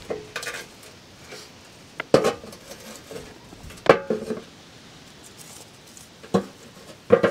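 Metal fire-pit wind shield clanking against the rocks of a stone fire ring as it is propped up: four sharp knocks, each with a short metallic ring, about two seconds in, just before four seconds, past six seconds and near the end.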